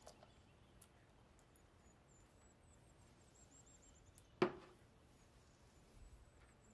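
Near silence broken by one sharp knock a little past the middle, dying away quickly.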